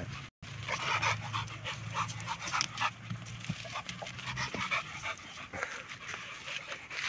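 A dog panting in quick, repeated breaths. A steady low hum runs underneath and fades out about five seconds in.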